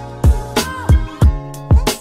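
Background music with a beat: deep kick-drum hits that drop in pitch, several in two seconds, over held notes and a steady bass line.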